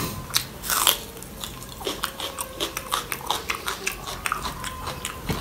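Close-miked chewing and crunching of crisp kureri, the fried rice-flour crisps eaten with rajma chawal. It is a quick run of sharp crunches, a few a second.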